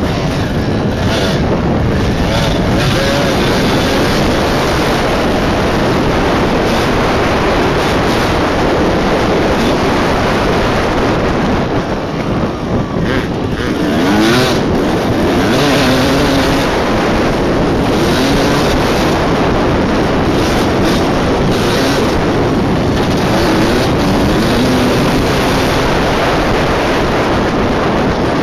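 Two-stroke 250 dirt bike engine under way on a trail, revving up and down with the throttle, with wind noise on the helmet microphone.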